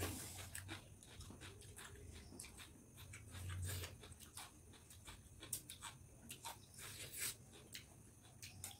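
Quiet eating sounds: scattered small clicks and smacks of chewing, with fingers tearing roti on a plate.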